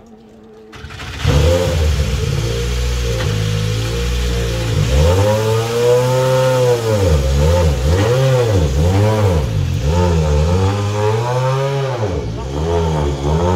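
Toyota GR Yaris Rally1's turbocharged 1.6-litre four-cylinder engine starts about a second in and runs at a steady idle. From about five seconds it is revved up and down repeatedly, in a string of blips, as the car pulls away.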